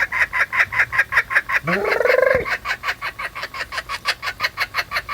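A chicken clucking in a rapid, even series, about seven clucks a second, with one longer rising-and-falling squawk about two seconds in.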